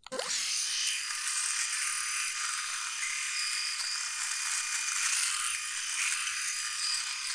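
Philips S9000 rotary electric shaver running against the skin, cutting through a seven-day beard. It makes a steady, high buzz that starts suddenly.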